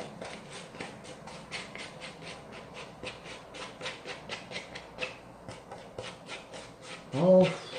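Plastic food cup being shaken and tapped upside down over a paper bowl to work its contents out: a quick, even run of light taps, about four or five a second. A short hum-like vocal sound comes near the end.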